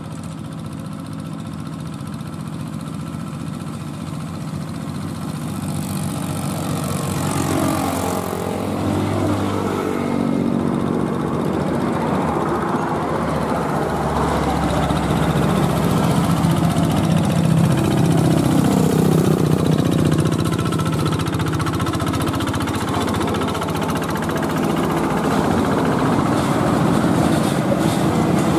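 Diesel engine of a heavy truck hauling a shipping container, pulling up a hill and growing steadily louder as it approaches. In the first ten seconds or so, small motorcycles pass by, their engine notes rising and falling in pitch.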